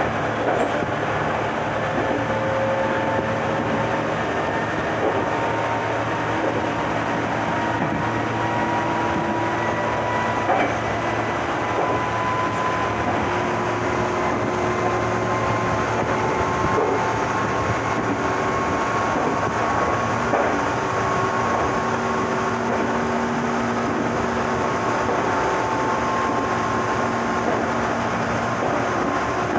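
Meitetsu 6000 series resistance-controlled electric train running, its traction motor whine rising slowly in pitch as it gathers speed over a steady rolling rumble, with an occasional knock from the rails.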